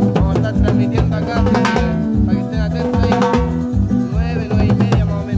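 Music with a steady drum beat, bass and guitar.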